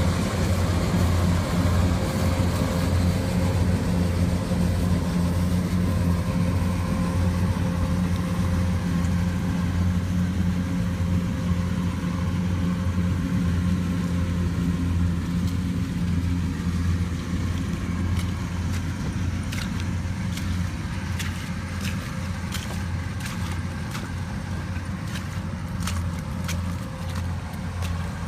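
Rice combine harvester's engine running steadily with a deep, even drone, easing slightly in loudness over time. In the last third, a scatter of sharp clicks sounds over it.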